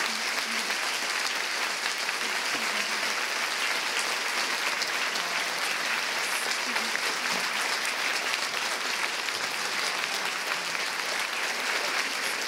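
A large audience applauding, a steady dense clapping that holds at an even level.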